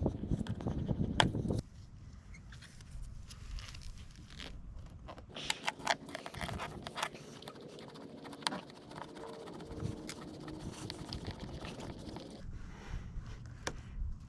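Dental floss sawing through the foam adhesive behind a car badge: light scraping with scattered small ticks. A low rumble fills the first second and a half.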